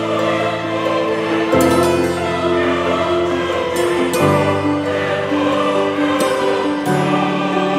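Background music: slow, held chords that change about every two seconds.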